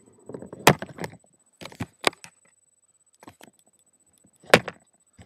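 Handling noise on the camera's microphone: a few sharp knocks and scuffs at irregular times as the camera is moved about, the loudest under a second in, about two seconds in and near the end.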